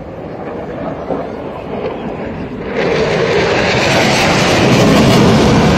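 Eurofighter Typhoon's twin EJ200 turbofan jet engines as the fighter flies past: a rumble that builds, then jumps to a loud, full hissing noise a little under three seconds in and stays loud.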